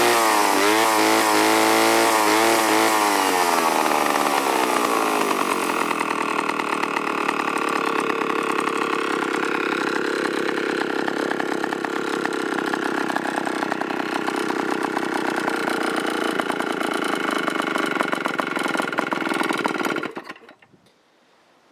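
1951–1953 IEL HA/HB direct-drive chainsaw with an 85cc two-stroke engine, running with its pitch wavering up and down at first, then settling to a steadier, lower idle a few seconds in. Near the end it is shut off and stops abruptly.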